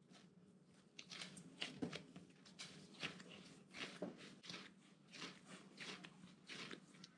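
Faint soft squishing and patting of a ball of yeast bread dough being kneaded by hand on a countertop, about two uneven strokes a second, starting about a second in.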